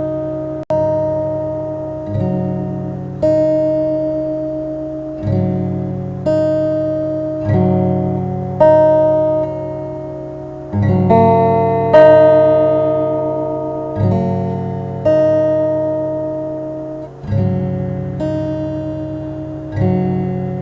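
Background music: acoustic guitar chords struck about once a second, each left to ring and fade before the next.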